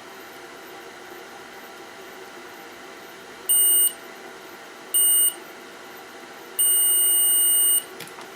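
Digital multimeter's continuity tester beeping three times, two short beeps and then one lasting about a second, as the probes touch circuit-board points; each beep signals a closed connection between the probed points.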